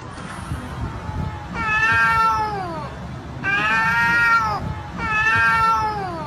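Cat yowling three times, each a drawn-out meow of about a second that arches and falls in pitch at the end.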